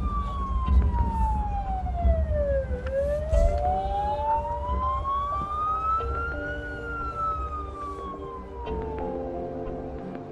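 Police siren wailing slowly: the pitch falls, rises over a few seconds, then falls again, over a low rumble. Steady music notes come in about a third of the way through and build near the end.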